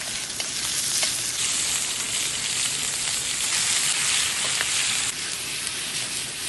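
Marinated shashlik meat sizzling over a campfire's coals: a steady hiss with a few sharp crackles, easing slightly about five seconds in.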